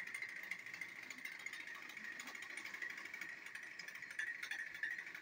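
Battery-powered TrackMaster toy train motors whirring steadily with a fine gear rattle as two engines push against each other on plastic track.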